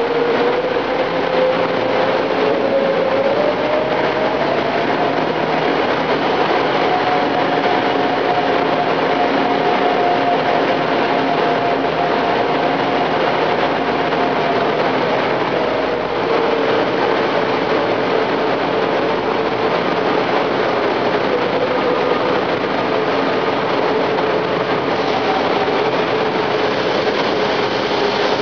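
Gehl loader running with its sweeper broom attachment: a steady mechanical noise with a whining tone that rises in pitch a few seconds in and eases back down about halfway through.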